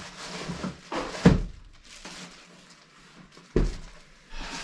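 Items being rummaged and moved around inside a large cardboard shipping box: rustling and shuffling, with a knock about a second in and a sharper thunk about three and a half seconds in.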